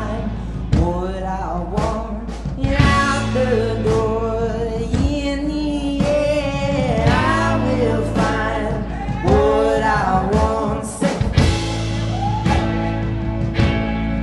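Rock song: a male singer's voice over electric guitar and band accompaniment. The singing stops about three-quarters of the way through, and the instruments carry on.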